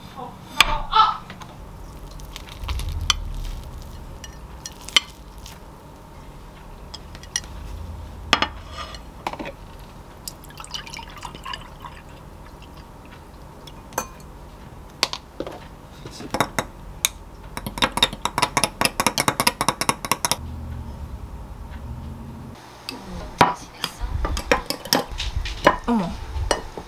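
Tableware handling: a plate and utensils knock now and then, then a spoon stirs a grain shake in a glass, clinking rapidly for about two and a half seconds. Near the end a fork taps and scrapes on a plate.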